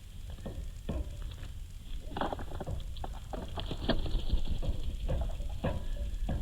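Small birds pecking and hopping in seed spilled on the ground close to the microphone: a run of irregular light taps and scratches.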